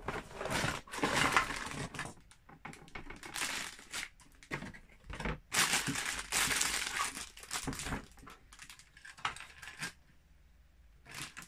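A cardboard LEGO set box being opened, then its plastic bags of bricks crinkling as they are pulled out and handled, with a few sharp clicks.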